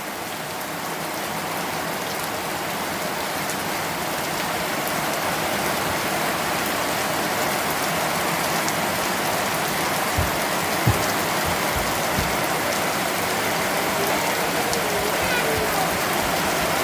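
Heavy downpour: a steady hiss of rain that builds a little over the first few seconds and then holds. A few short low thumps come about ten to twelve seconds in.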